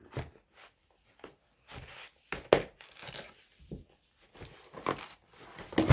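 Doll box packaging being worked open: cardboard and plastic crinkling and tearing, with irregular sharp clicks and snaps, the loudest about two and a half seconds in and near the end.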